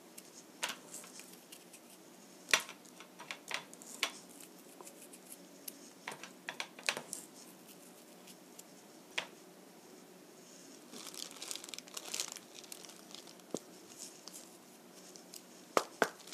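Disposable plastic glove crinkling and rustling while a hand pinches and sprinkles salt, with scattered small ticks and a longer rustle about eleven seconds in. Near the end come a few sharp clicks as the small ceramic salt dish is handled.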